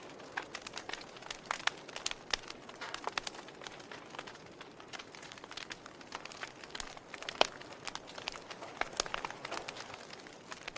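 Fire crackling: irregular sharp pops and snaps over a soft steady hiss, with one louder pop about seven seconds in.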